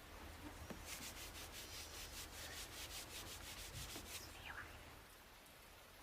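Cloth being rubbed quickly back and forth on a plastic ruler, a faint, even scratching of many strokes a second that lasts about three seconds and then stops; the rubbing charges the ruler with static electricity.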